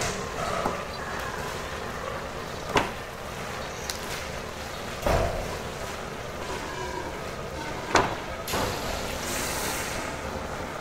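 Steady hum of a food-processing room with a few sharp knocks of a kitchen knife striking a plastic cutting board as a whole chicken is cut apart. A brief hiss follows the last knock.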